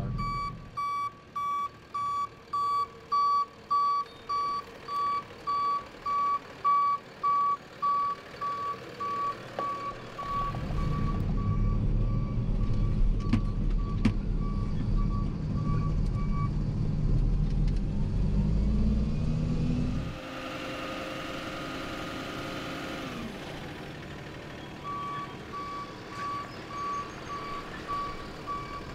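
Hook-lift dumpster truck's reversing alarm beeping steadily, a little under two beeps a second, over the truck's running engine, whose rumble grows louder about ten seconds in. The beeping stops a little past the middle, a hiss follows for a few seconds as the engine drops back, and the beeping starts again near the end.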